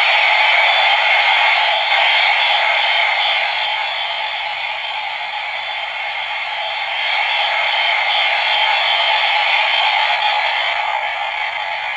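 DX Mirai Driver toy belt, Shinobi part fitted, playing a long rushing, hiss-like electronic sound effect through its small speaker as part of the finishing-move sound. It holds steady for several seconds, then starts to fade near the end.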